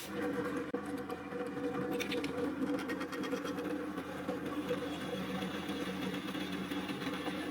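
Homemade drill-bit sharpener driven by an old washing-machine motor, running with a steady electric-motor hum, with brief scratchy sounds about two seconds in.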